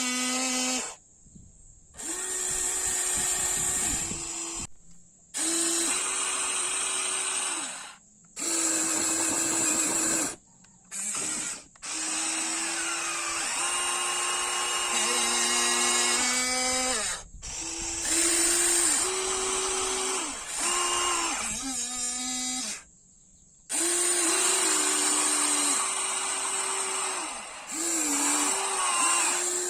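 Small electric motors whining in short runs that start and stop abruptly, shifting between a lower and a higher steady pitch as different motions are driven, typical of a radio-controlled model excavator working.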